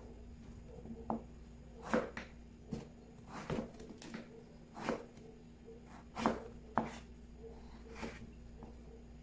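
Knife cutting through firm raw kohlrabi onto a cutting board: irregular sharp knocks about once a second.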